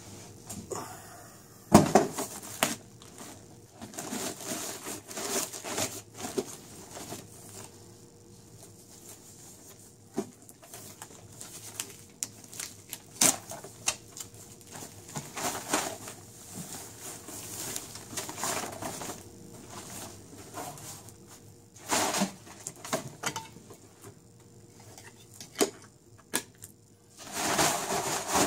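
Thin plastic bag crinkling and rustling in irregular bursts, with sharp crackles, as it is torn open and pulled off a projector.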